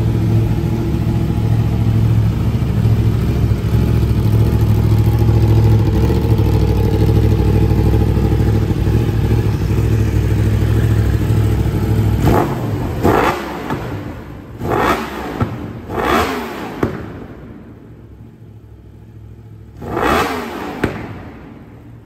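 Yamaha YZF-R1M's crossplane inline-four idling steadily, then from about twelve seconds in given a series of sharp throttle blips, each rev rising and falling quickly, the last near the end.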